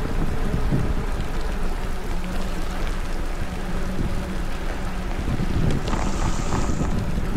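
Wind rushing over the Insta360 X4 camera's microphone as a Specialized Rockhopper mountain bike is ridden in rain: a steady low rumble with a wash of rain noise. About six seconds in, a short high hiss joins for about a second.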